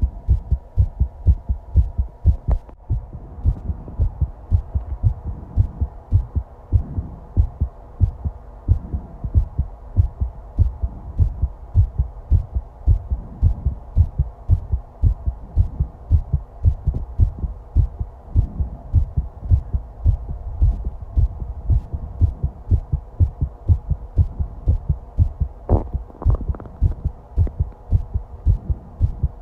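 A person's heartbeat picked up close to the body: a steady, regular run of low, dull lub-dub thumps. Near the end comes a brief, higher gurgle, likely the stomach growling.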